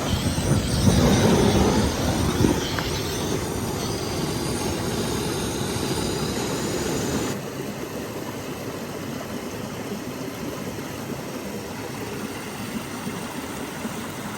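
Waterfall water rushing steadily. The sound drops a step in level about seven seconds in.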